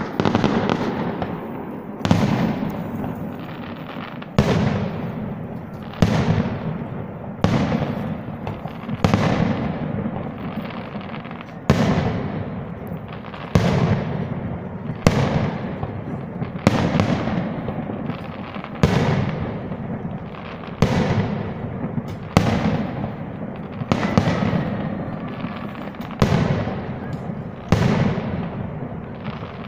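Aerial fireworks shells bursting, a sharp boom every one and a half to two seconds, each trailing off in a long echo.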